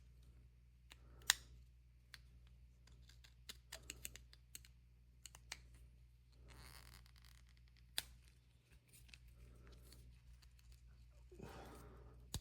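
Faint handling of small fiber-reinforced plastic composite tools: scattered sharp clicks and ticks, two louder ones about a second in and about eight seconds in, with a couple of brief soft scrapes.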